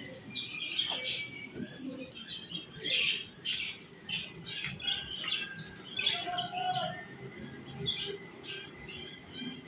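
Budgerigars chirping and warbling, a busy run of short high chirps.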